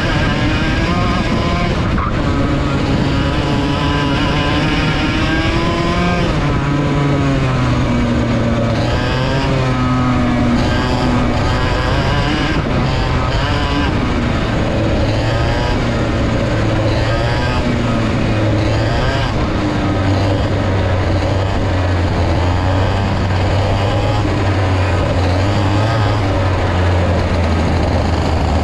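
Vortex VLR 100 two-stroke kart engine at racing speed, its revs rising and falling over and over as it accelerates and lifts for corners. Other karts' engines run close by.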